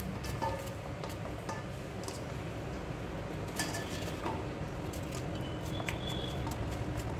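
Kitchen knife cutting a peeled bottle gourd into small cubes held in the hand, with faint scattered clicks as pieces drop into a stainless-steel bowl, over a steady low hum.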